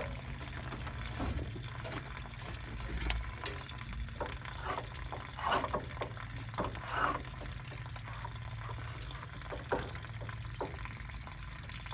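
Water trickling and running over a steady low hum, with scattered light clicks and knocks from handling the seized pump, a cluster of them about five to seven seconds in.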